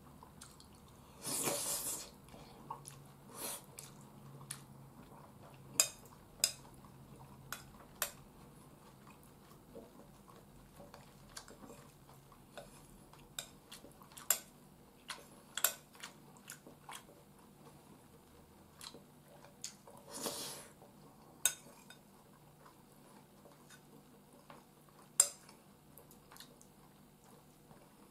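A spoon clinking and scraping against a bowl of curry and rice in irregular, sharp clicks every second or few, with quiet chewing between spoonfuls. Two brief hissing noises come about a second in and again around twenty seconds.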